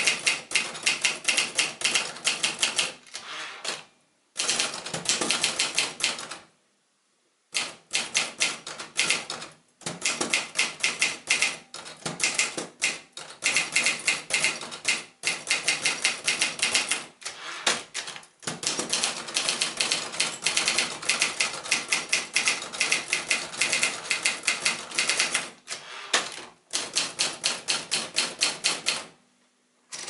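1967 Facit TP2 manual typewriter being typed on: fast runs of sharp key strikes, broken by short pauses, the longest about seven seconds in.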